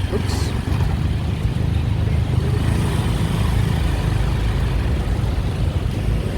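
Wind buffeting the microphone during a bicycle ride, a loud, steady low rumble mixed with city street traffic noise.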